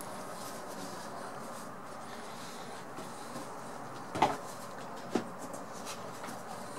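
A leatherette banknote album being handled, shut and laid on a wooden slatted table: light handling noises, then two sharp knocks about a second apart.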